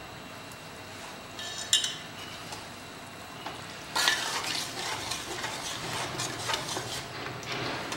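Masala thinned with mutton stock sizzling and bubbling in an aluminium pot over a gas flame on full, with brief metallic clinks about a second and a half in. From about four seconds in, a spoon stirs and scrapes through it, and the sizzle grows louder.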